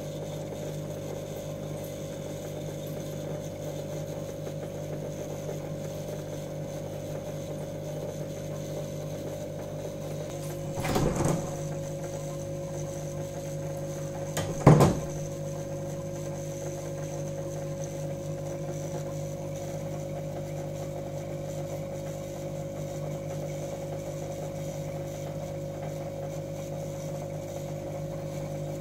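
Aquarium pump humming steadily with a constant electric drone. Twice, about four seconds apart, there is a brief knock, the second one louder.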